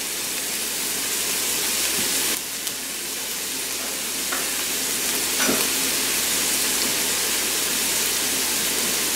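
Finely chopped onion sizzling in vegetable oil in a small sauté pan, a steady frying hiss that dips briefly about two and a half seconds in.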